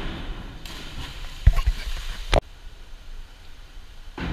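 A single sharp thud about a second and a half in, amid echoing indoor pool-hall noise, all cut off abruptly about a second later.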